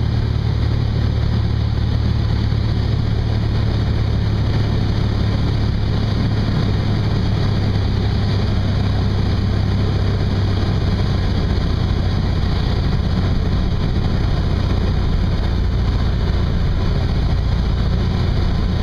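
Zenith STOL CH 750 light aircraft's piston engine and propeller running steadily, heard inside the cockpit as a constant low drone.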